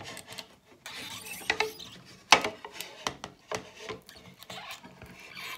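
Manual can opener being cranked on a tin can: irregular metal clicks and short scrapes as the turning key is wound, with one sharp loud click a little over two seconds in.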